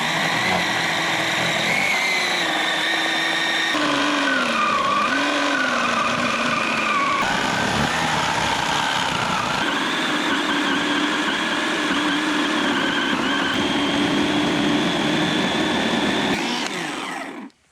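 Electric chainsaw running steadily while cutting through a tree trunk, its motor pitch dipping and recovering as the chain bites into the wood. It stops suddenly near the end.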